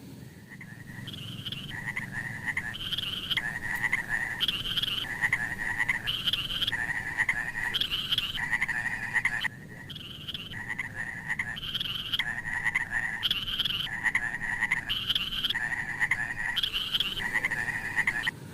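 Frogs croaking in a steady, repeated series, with higher and lower calls alternating, and a brief pause about halfway through.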